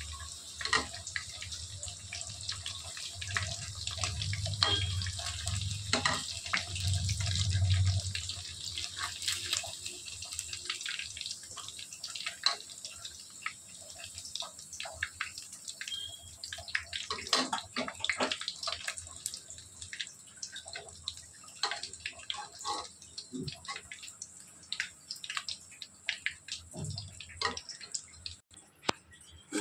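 Hot oil sizzling in an aluminium kadhai after frying chicken pakoda, with a steady hiss and many small crackles and pops. A low hum sits under it for roughly the first eight seconds.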